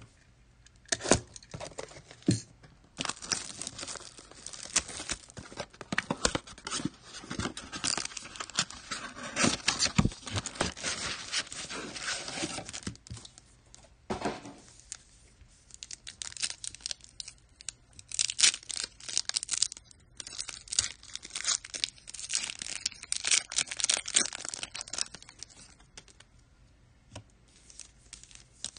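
Plastic trading-card wrapping being torn open and crinkled by hand, in irregular bursts of crackling that come and go.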